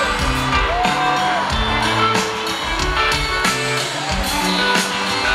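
Live rock band playing through a concert PA, recorded from the audience: electric guitars and a drum kit carrying on without vocals.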